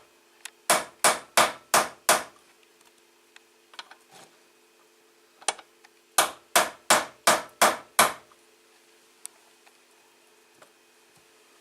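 Hammer blows tapping the retaining ring down onto a motorcycle's rear brake fluid reservoir, seating a new sight-window pane on its rubber seal. The blows come in two quick runs of about three a second, five then six, with a few lighter knocks between.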